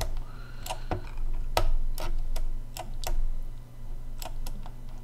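Scattered sharp clicks from a computer mouse and keyboard at an irregular pace, about ten of them, over a steady low hum.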